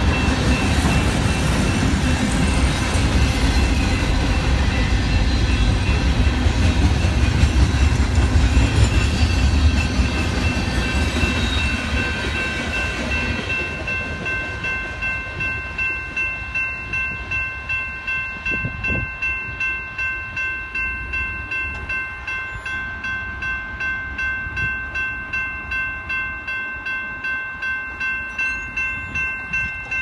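A freight train of tank and hopper cars rolls past with a heavy rumble and wheel clatter, fading out about halfway through as the last cars go by. A grade-crossing bell then rings on steadily, about two strikes a second, with one sharp clank near two-thirds of the way in.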